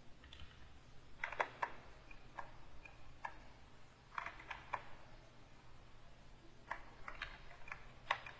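Faint light clicking from a computer keyboard and pen tablet in use: short clusters of clicks with gaps of a second or two between them, over a steady low hum.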